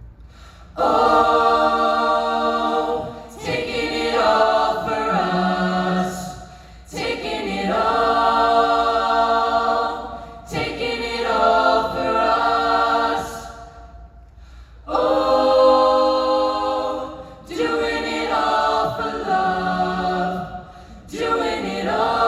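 High school a cappella group singing wordless held chords in several voice parts, in about seven phrases with short breaths between them.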